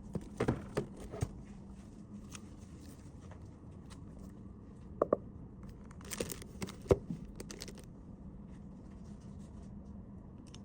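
Small items and packaging being handled on a table: a few clicks and taps near the start, two more about five seconds in, and a brief rustle with a tap around six to seven seconds.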